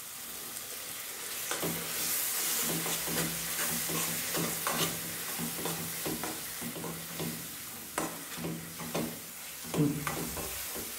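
Tomato-and-spice masala sizzling in a non-stick kadai as onion paste is added and stirred in. A steel spoon scrapes and taps against the pan over and over.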